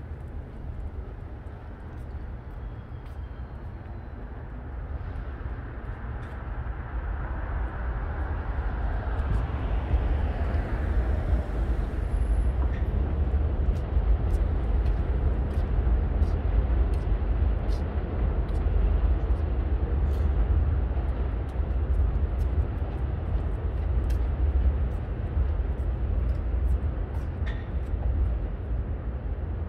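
Street traffic: a steady low rumble that grows louder about six seconds in and eases off near the end, with one vehicle passing by in the middle, its pitch falling as it goes.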